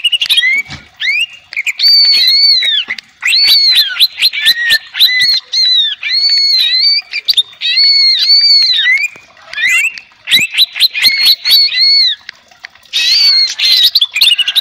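Cucak ijo (green leafbird) singing loudly: bouts of looping, rising-and-falling whistled phrases and quick runs of sweeping notes, broken by short pauses. It is a lure song, used to set other cucak ijo singing.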